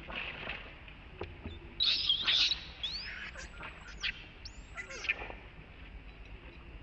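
Baby long-tailed macaque screaming in high-pitched squeals of distress while an adult grabs it by the tail and pins it down. The loudest burst comes about two seconds in, followed by a few rising, arching shrieks over the next three seconds.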